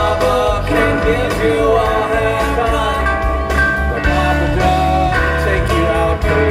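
Live rock band playing: electric bass, acoustic guitar and drums, with a melody of held notes over the top.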